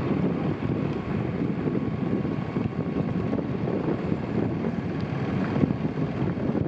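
Steady rushing of wind on the microphone with water noise from a boat moving along a river.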